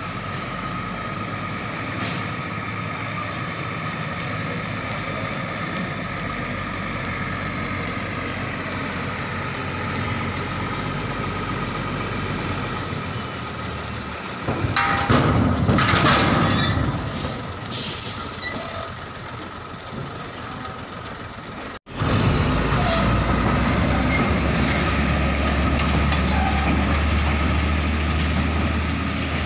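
Diesel tractor unit of a container truck running as it manoeuvres to couple to a container trailer, with a loud noisy burst and clanks about halfway through. After a sudden cut about two-thirds in, a louder, deeper steady engine drone.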